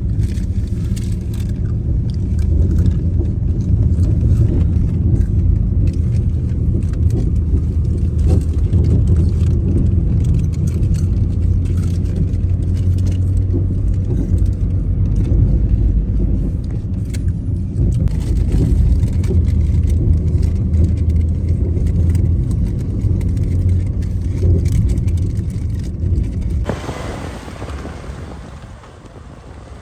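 Steady low rumble of a motor vehicle running, with scattered small clicks and rattles. About 27 s in the rumble fades and a hiss takes over.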